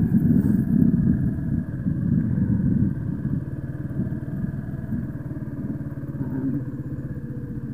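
A 125cc motorcycle engine running under throttle as the bike is ridden. It pulls harder for about the first three seconds, then eases to a steadier, quieter run.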